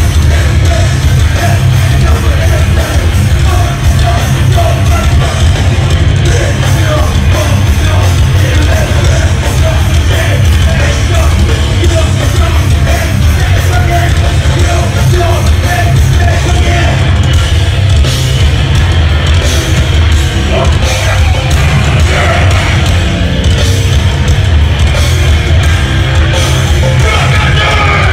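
Hardcore band playing live, heard from inside the crowd on an overloaded recording: loud, distorted guitars, bass and drums with shouted vocals, without a break.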